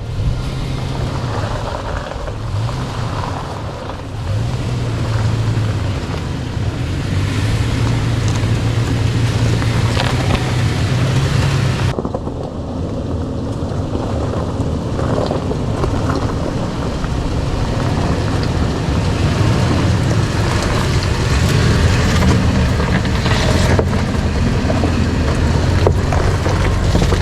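Off-road 4x4 vehicle engine running at low speed on a rough trail, its pitch rising and falling as the throttle changes, under a steady rush of road and wind noise. The sound changes abruptly about twelve seconds in.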